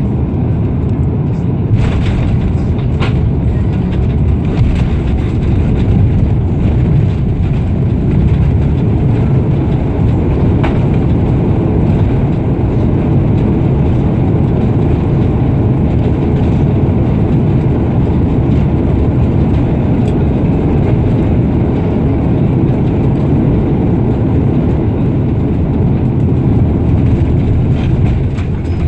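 Cabin noise of an Airbus A340-300 with its four CFM56 engines, touching down and decelerating on the runway with ground spoilers raised: a heavy, steady rumble, with a sharp knock about two seconds in.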